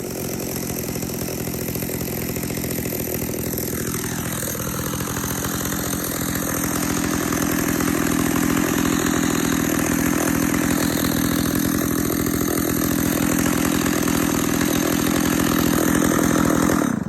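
Stihl 056 Magnum II two-stroke chainsaw running at high speed with its bar in a 20-inch red oak log, working under load through the cut. It runs steadily, gets a little louder about seven seconds in, and cuts off suddenly at the end.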